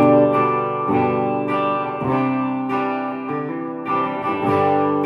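1960s Höfner Verithin thinline electric guitar playing ringing chords, a new chord or notes picked about every half second, each left to sustain into the next.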